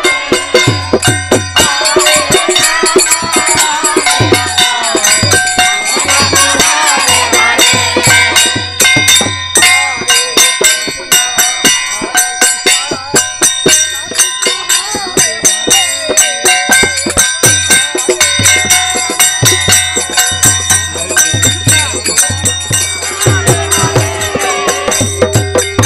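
Live folk devotional music: a dholak beaten in a steady rhythm under dense jingling, clashing metal percussion, with voices chanting along. A steady held note joins near the end.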